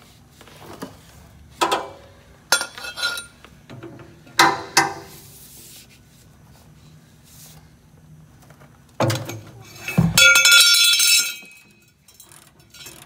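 Long wrench clinking and clanking on an over-tightened oil drain plug of a Cummins engine's oil pan as the plug is forced loose. A few sharp metal knocks in the first five seconds, then a louder, ringing metallic clatter about ten seconds in.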